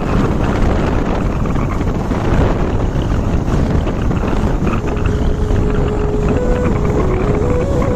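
Steady wind rush on the microphone of a moving vehicle, mixed with road and engine noise. A thin stepping tune comes in faintly about five seconds in.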